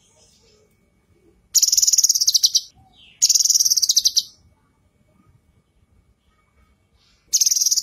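Female cucak kinoi calling: three loud bursts of rapid, high chattering trill, each about a second long, the last starting near the end.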